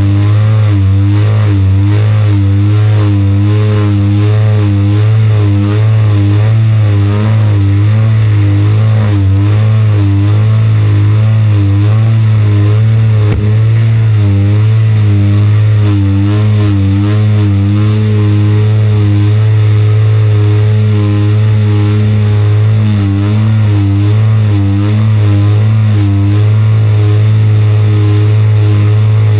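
AGM 30cc two-stroke petrol engine of a large radio-controlled model plane running at high throttle, recorded from the camera mounted on the plane. Its pitch wavers up and down about once a second.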